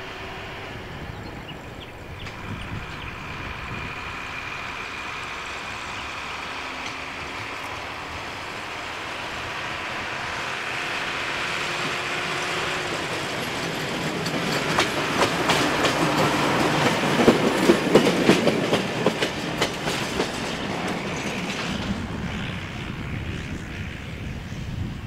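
Small motor rail trolley towing a flat wagon, running along the track. Its sound grows louder as it approaches, and its wheels click rapidly over the rail joints as it passes close, about halfway through. It then fades as it moves off.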